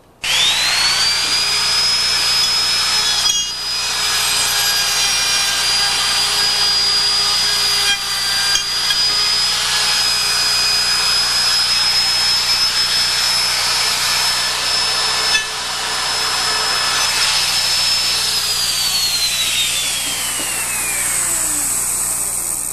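Electric router cutting hinge mortises into a wooden door jamb with a bearing-guided bit following a hinge template. It starts up to a steady high whine, with brief dips in level as the bit works the wood, and about 18 seconds in it is switched off and the whine falls away as the motor spins down.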